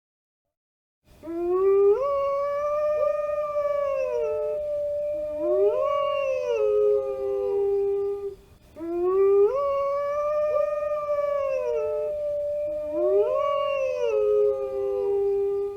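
Wolves howling: one long howl that rises and holds steady, overlapped by a second voice that swoops up and falls away. The chorus breaks off briefly about halfway through and then repeats almost the same.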